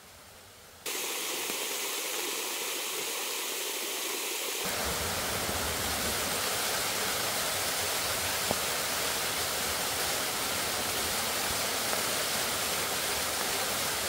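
Waterfall pouring into a rock pool, a steady rushing of falling water. It cuts in suddenly about a second in and grows fuller and deeper about five seconds in.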